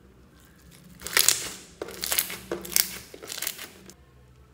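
Clear slime packed with purple beads being squeezed and stretched by hand, giving several loud, sharp bursts of noise from about a second in until near the end.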